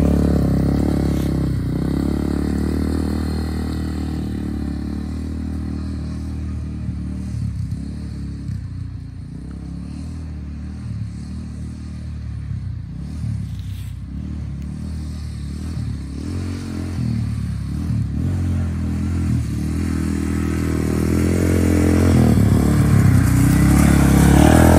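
Manual-clutch ATV engine running under way, fading as the quad moves off, then growing louder again as it comes back near the end.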